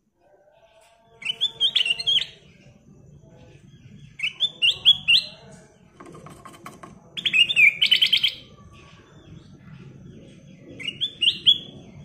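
Ruby-throated bulbul (kutilang emas) singing in four short bursts of quick, bright rising notes, about one phrase every three seconds.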